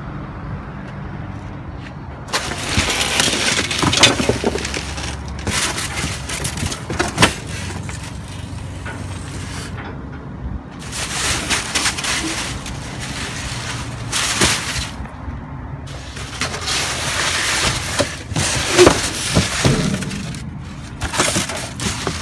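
Cardboard boxes, plastic bags and foam sheets being rummaged through and shifted inside a metal dumpster: bursts of rustling and crunching every few seconds.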